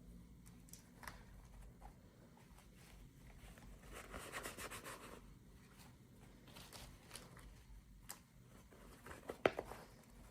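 Faint handling of toy packaging: a short stretch of tearing or crinkling about four seconds in, and a few sharp clicks near the end.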